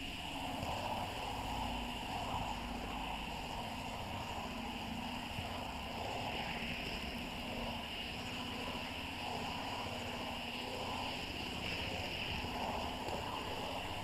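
Steady rumbling whir of a model train running fast along the layout's track, heard from on board the moving train.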